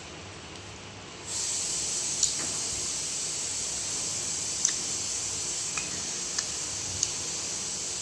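A steady hiss that switches on suddenly about a second in, with a few faint clicks over it.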